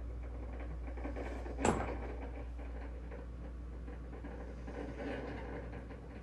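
Faint rustling and light handling noises of food being arranged on a plate, with one sharp knock a little under two seconds in, over a steady low hum.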